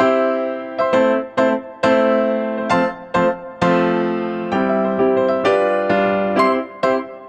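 Background music: a keyboard piece of struck chords and notes, about two a second, each one ringing and dying away.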